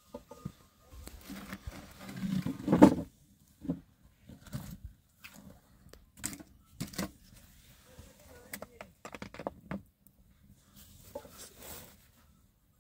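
Flatbread baking on a domed iron griddle over an open wood fire: scattered sharp clicks and knocks from the fire and from the bread being handled on the griddle. A louder low sound comes about two to three seconds in.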